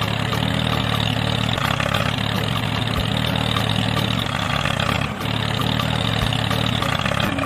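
A steady engine-like running hum with a buzzing upper layer, briefly dipping about five seconds in.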